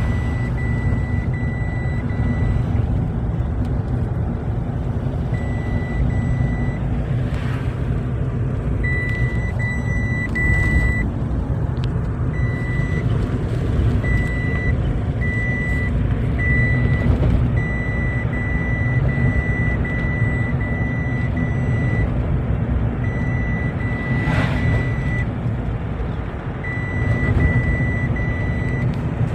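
Heavy vehicle's engine running steadily under a reversing alarm. The alarm beeps on and off in runs, with a few short pauses.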